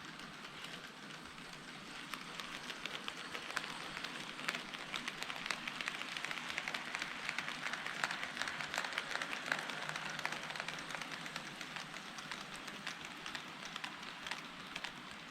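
HO-scale model train running past on the track: a steady rattling hiss of wheels and motor with many rapid small clicks, growing louder to a peak in the middle and easing off toward the end.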